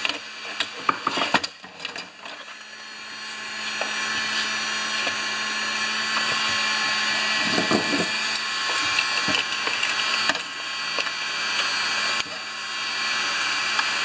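Tyre bead being levered onto a plastic lawnmower wheel rim with a screwdriver, giving clicks, knocks and scrapes of metal and rubber against plastic. These sound over the steady whir of a shop heater's fan, which grows louder about two seconds in.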